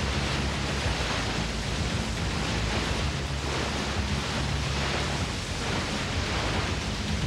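A big whitewater river rapid: a steady, unbroken rush of churning, breaking water.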